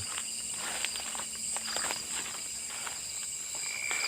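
Steady high-pitched chorus of night insects such as crickets or cicadas, with scattered footsteps and rustling in undergrowth. Near the end a further steady, lower insect-like tone joins in.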